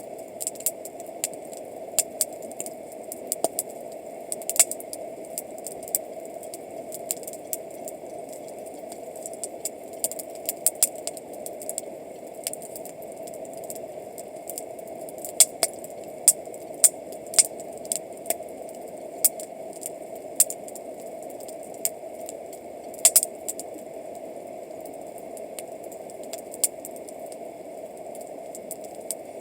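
Wood campfire crackling, with sharp pops and snaps at irregular intervals over a steady background rush.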